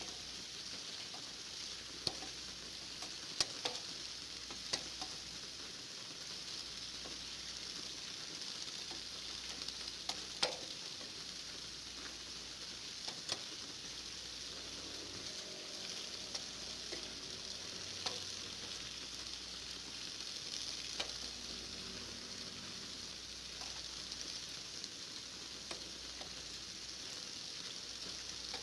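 Steady rain falling, an even hiss with now and then a single louder drop tapping close by.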